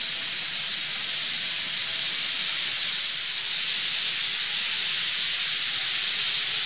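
A huge flock of bramblings in flight at their winter roost: a steady rushing hiss of countless wingbeats and massed calls blending together, growing slightly louder about halfway through.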